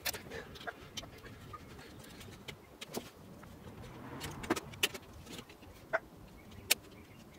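Metal parts of a Ricoh copier fuser unit clicking and clinking as they are handled and fitted together by hand. There is an uneven scatter of sharp clicks, a few ringing briefly, and the loudest come near the end.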